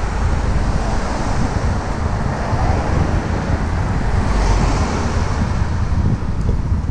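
Wind buffeting the microphone over steady road traffic noise, a dense rushing sound that swells briefly about four to five seconds in.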